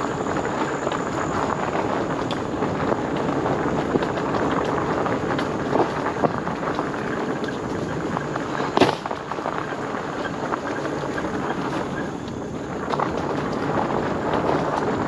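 Fat 26 x 4.8 inch e-bike tyres rolling fast down a dirt and gravel trail, with wind buffeting the microphone and small rattles over the bumps. One sharp knock about nine seconds in, as the bike hits a bump.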